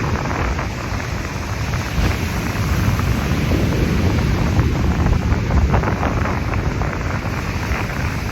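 Wind buffeting the microphone in a steady low rumble, with ocean surf washing underneath.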